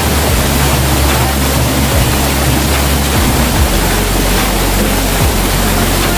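Small waterfall pouring into a rock pool: a steady rush of falling water with a deep low rumble underneath.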